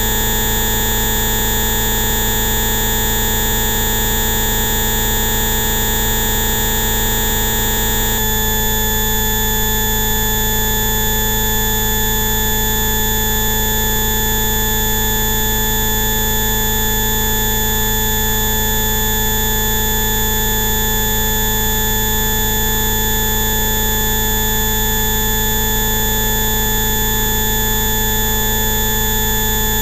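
Electronically generated frequency tones of the kind sold as Rife or bioresonance frequencies: many steady pitches sound together as a dense, buzzing drone over a hiss. About eight seconds in, the set of tones switches abruptly to a different one, and the new set then holds steady.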